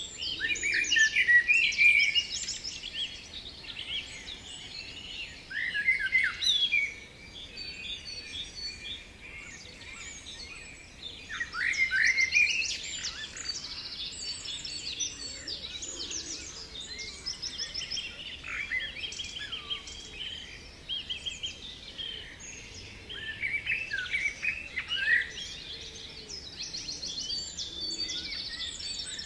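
Several birds singing at once: a dense, continuous mix of chirps, trills and quick falling phrases, with louder bursts every few seconds.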